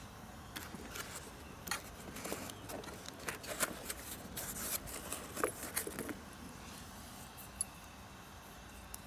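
Handling noise: a series of small clicks, taps and rustles as a rubber watch strap is pulled out of the foam insert of a plastic hard case. The handling is busiest in the first six seconds and then thins to a few faint ticks.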